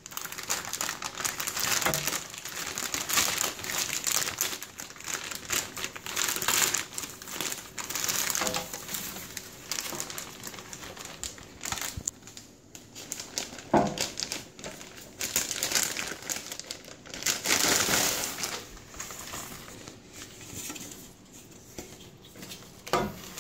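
Clear plastic bag crinkling in irregular bursts as hands open it and pull it back off a set of car window louvers.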